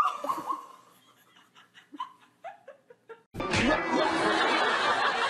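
A woman laughing: a rising cry followed by a run of short chuckles that fall in pitch. About three seconds in, music starts abruptly and carries on steadily.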